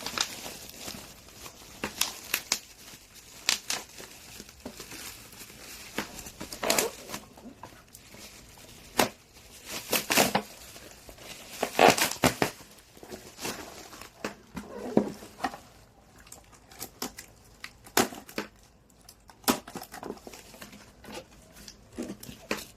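Shipping package being unwrapped by hand: packaging crinkling, rustling and tearing in irregular sharp bursts, loudest in clusters about halfway through.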